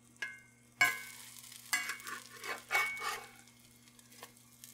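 Pancakes sizzling in melted butter in a cast-iron skillet while a metal spatula scrapes and taps against the pan as they are flipped, with several sharp strokes in the first three seconds.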